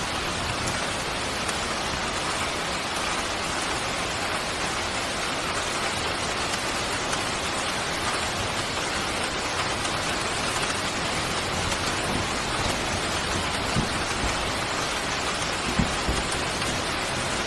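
Steady rain falling, an even hiss without a break, with a couple of brief low thumps late on.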